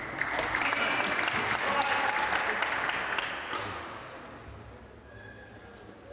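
Audience applauding a won point in a badminton match: a burst of clapping that fades out about four seconds in.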